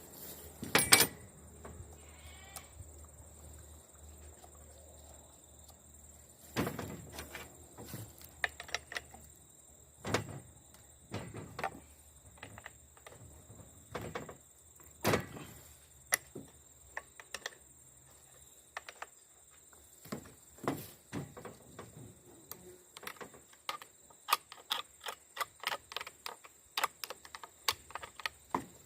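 Short scraping strokes and clicks of a round file worked across a 3/8" chainsaw chain's cutters. The strokes come one at a time at first and settle into a quicker run of about two a second near the end.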